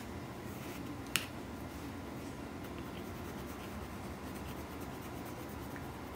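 Colored pencil shading on paper, a faint scratching, with one sharp click about a second in as a pencil meets the table.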